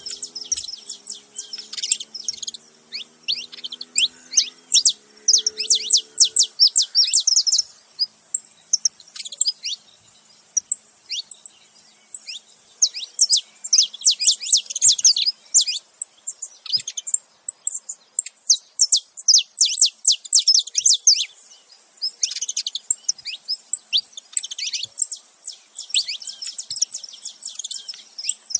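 Saffron finches, a male and a female, calling together: rapid bouts of short, high chirps with brief pauses between bouts.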